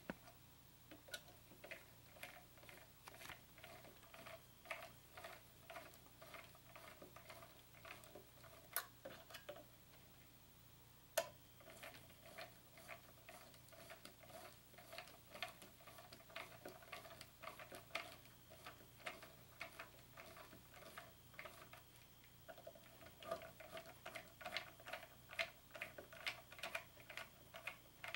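Hex-bit screwdriver driving a guitar bridge's mounting wood screws into the guitar body: faint, quick clicking ticks in runs, broken by two short pauses.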